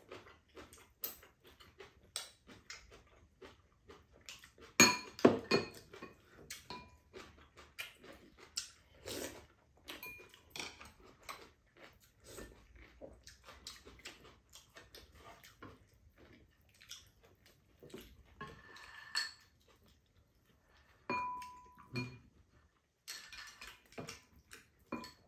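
Eating at a table: chopsticks and metal spoons clicking and clinking against ceramic bowls and a pan, a sharp cluster of clinks about five seconds in, with soft sips of soup in between.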